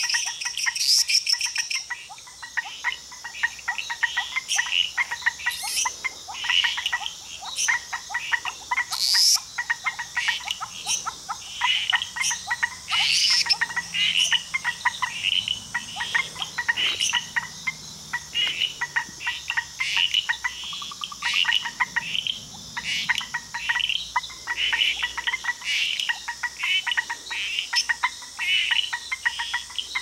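Frog chorus of yellow treefrogs: many short, clicking calls overlapping and repeating several times a second, with a few brief higher chirps mixed in.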